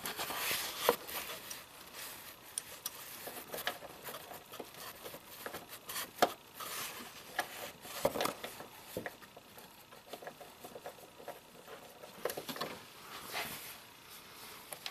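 Scattered light clicks and rustling as hands fit a plastic MAP sensor onto its bracket and push its small vacuum hose onto the sensor's nipple.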